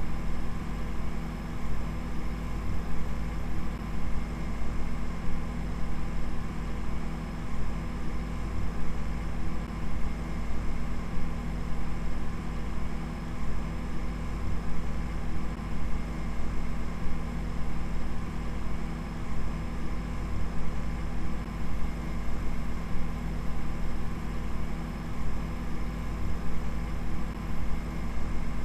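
Steady low droning hum with a wash of hiss and a few fixed tones, unchanging throughout with a slight flutter.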